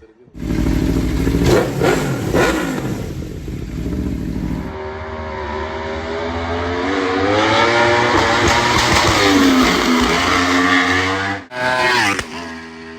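Aprilia RSV4's V4 engine through a Leo Vince GP exhaust: two sharp throttle blips in the first few seconds, then a long pass in which the engine note climbs for several seconds and drops off as the bike rides by.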